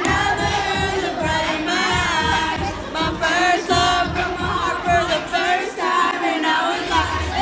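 Loud music with a singing voice over a bass beat, with a crowd of voices mixed in.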